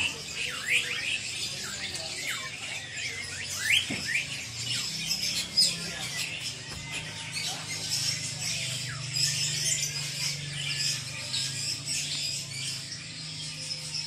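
Many caged songbirds chirping and calling at once, short quick notes overlapping from several birds, over a low steady hum.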